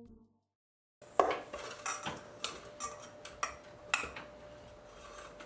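A metal utensil clinking and scraping against a stainless-steel mixing bowl as food is stirred, with clinks about twice a second starting about a second in. A faint steady hum runs underneath.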